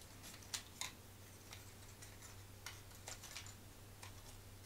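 A handful of faint, scattered clicks and taps of thin laser-cut wooden puzzle pieces being handled and slotted together by hand.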